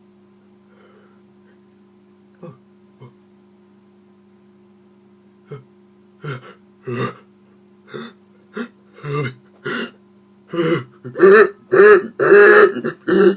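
A man's gasping pre-sneeze intakes of breath, a sneeze winding up but not coming. The first comes about five seconds in, and they grow longer, louder and closer together toward the end.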